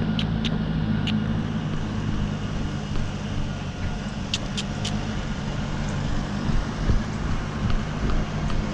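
A horse being ridden at the canter, heard through a helmet-mounted camera: a steady low rumble and hum of movement, with a few faint high clicks near the start and again in the middle.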